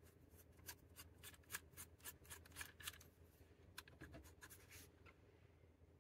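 Faint, rapid small plastic clicks and scratches as a GoPro mount adapter is twisted off the Ulanzi MT-16 mini tripod's ball-head screw plate: a quick run for about three seconds, then a few more about four seconds in.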